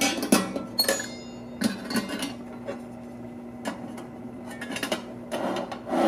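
Stainless steel plates and lid of a surgical instrument box being handled and set in place: sharp metal clicks and clinks, several in the first two seconds, a few scattered taps, then a longer rattling clatter near the end as the lid is seated. A steady low hum runs underneath.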